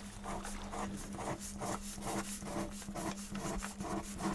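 Ballpoint pen writing on paper, close-miked: quick scratching strokes, about four to five a second, over a steady low hum.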